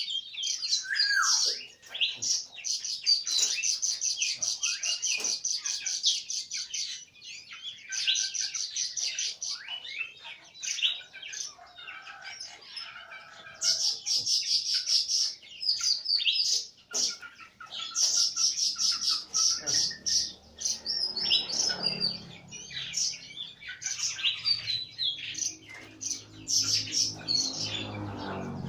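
Small birds chirping in fast, repeated chirp trains while being fed. A low hum joins about two-thirds of the way through.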